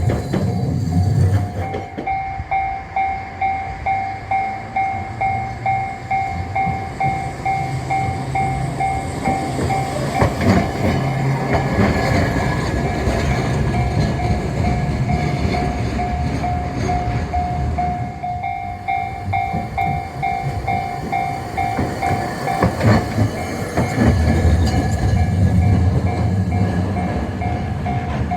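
Japanese railway level-crossing warning bell ringing in a steady repeating ding-ding, about two strikes a second, with a low rumble underneath that is strongest at the start and near the end.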